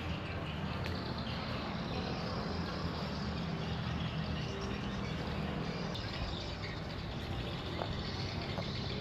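An engine running steadily with a low rumble, under outdoor background noise.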